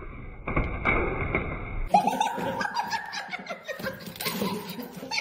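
A few soft knocks and scuffles, then, from about two seconds in, a person laughing in short breathy bursts.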